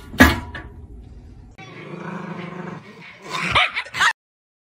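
A sharp thump about a quarter second in, the loudest moment. Later a dog barks and growls in a few quick calls near the end, then the sound cuts off suddenly.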